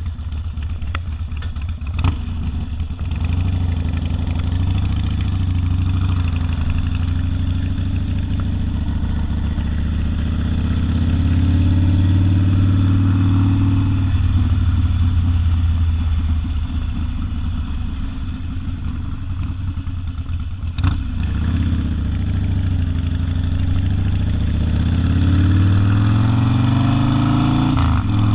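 Harley-Davidson Sportster V-twin with open exhaust, ridden under way. Its pitch rises as it accelerates, falls back, then climbs again with a brief drop near the end, as at a gear change. A sharp crack comes about two seconds in and again about twenty-one seconds in.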